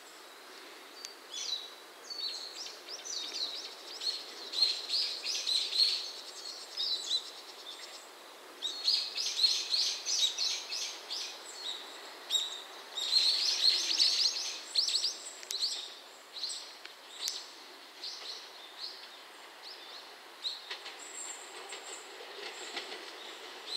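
Small birds chirping and singing in bursts of rapid, high-pitched calls. Near the end a faint low rumble comes in from the approaching diesel train.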